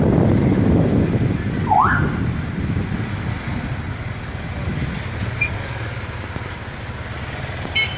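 Motorcycle engines running and road noise while riding in traffic, easing off after the first two seconds. A short rising siren whoop sounds about two seconds in.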